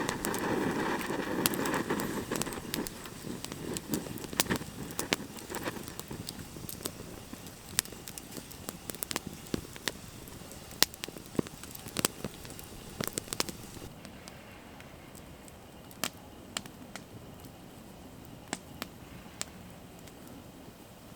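Wood campfire crackling, with sharp irregular pops throughout. A louder hiss sits under the pops for the first few seconds.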